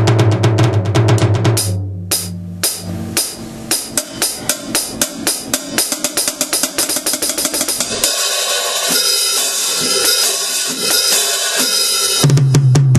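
Sonor drum kit played hard in a sound check. Fast snare and tom strokes run through the middle, then cymbals ring out continuously for the last few seconds. A steady low synth-like tone from the sampler sits under the opening seconds and returns near the end.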